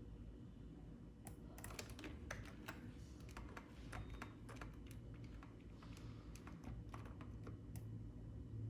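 Computer keyboard keys tapped in an irregular run of quick clicks, starting about a second in and stopping shortly before the end, over a low steady hum.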